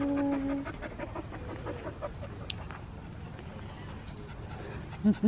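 A dog panting in quick, even breaths, with a short held pitched sound right at the start and a few louder short vocal sounds near the end.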